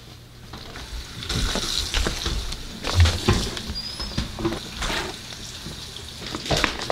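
A plastic rice paddle scraping and turning through a mound of hot steamed purple sticky rice, with a scratchy rustle and many small clicks and taps, to let the excess steam out before storing. A single low thump about three seconds in.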